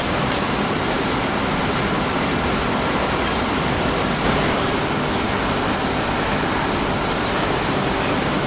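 Steady, even machinery noise with a faint high hum running through it, unchanging.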